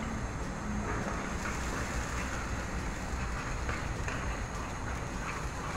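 A seafood and squash-purée sauce sizzling steadily in a frying pan over a gas flame, with a metal spoon stirring it and giving a few light scrapes against the pan.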